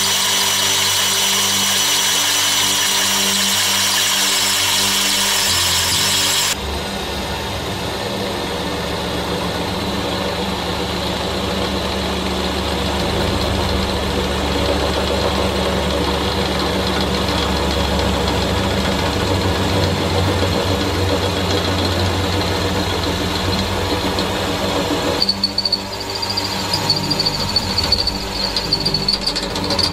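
Cordless drill boring through a steel trailer rail, the motor running steadily under load as the bit cuts the metal. The sound changes abruptly about six seconds in, and near the end a high steady squeal and an uneven chatter come in as the bit bites.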